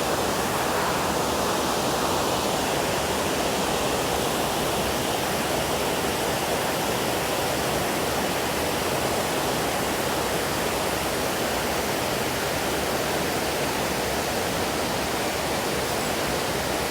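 Steady rush of flowing creek water, an even hiss that holds at one level throughout.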